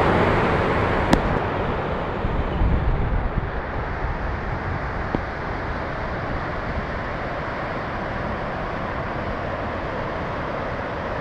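Waterfall rushing steadily, a constant roar of falling water. There is some wind rumble on the microphone in the first few seconds and a single sharp click about a second in.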